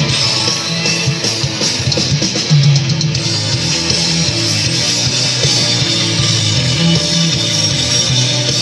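Loud rock music with distorted electric guitar and a drum kit.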